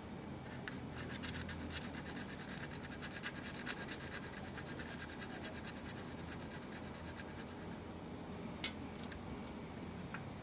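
Scratching and rubbing from hands and small tools working on a graphics card, dense with quick little clicks for the first few seconds, then sparser, with one sharper click near the end.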